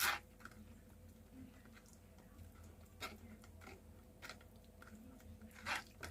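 Hands squeezing ground lemon pulp in a sieve: faint, irregular wet squelches with a few short soft bursts.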